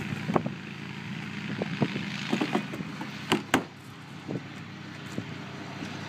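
A quad's (ATV's) engine running at a steady idle, with a scatter of knocks and clunks from gear being handled at its plastic rear cargo box; the loudest is a pair of knocks about three and a half seconds in.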